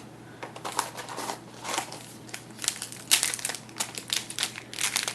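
Plastic-foil trading-card pack wrapper crinkling in irregular crackles as it is handled and torn open.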